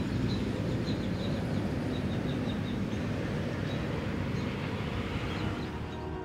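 Evening outdoor ambience: a steady low rumble of distant traffic, with a small bird giving short high chirps, a quick run of them in the first half and a few scattered ones later.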